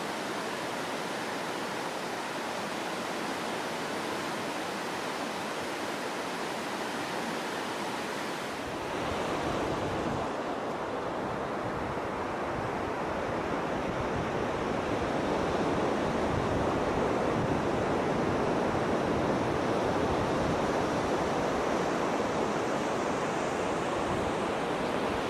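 Steady rush of water, an even hiss with no clear rhythm, that grows fuller and deeper about nine seconds in and a little louder after that.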